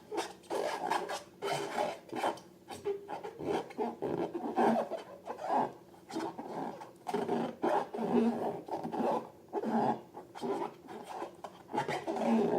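Rubber balloons being rubbed and squeezed by hand, making irregular rubbing strokes several times a second.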